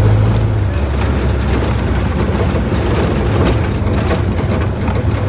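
Car engine running as the car drives over rough ground, its low hum dropping in pitch about a second in, with road noise and a few sharp knocks and rattles.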